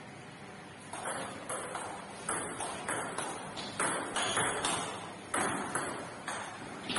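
Table tennis rally: the celluloid ball clicking off the bats and the table in a quick back-and-forth, a sharp tock roughly every half second, each with a short echo in the hall. The hits start about a second in.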